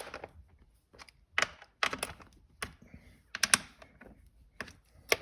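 Irregular sharp metallic clicks and taps from a hand tool working the shifter's fasteners as they are snugged down, one or two clicks a second with short pauses between.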